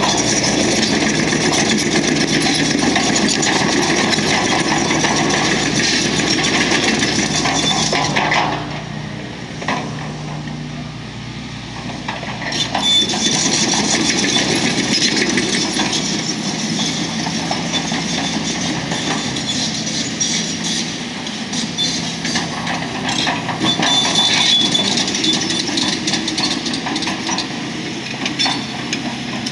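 Hydraulic excavator's diesel engine working under load, with metallic clinking and scraping from the digging. The engine eases off for a few seconds about a third of the way in, then picks up again with frequent sharp clanks.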